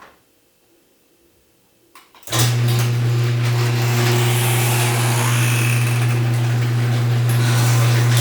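A steady, loud machine hum with an unchanging low drone starts abruptly about two seconds in, after near silence and a couple of faint clicks.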